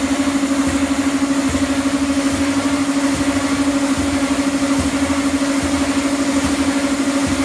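Escalator step-cleaning machine running on the moving steps: a loud, steady motor hum with a fast, even pulsing.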